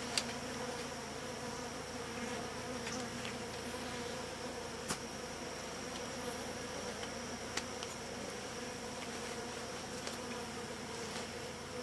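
Honeybee colony buzzing in a steady hum from the open hive, with a few short clicks.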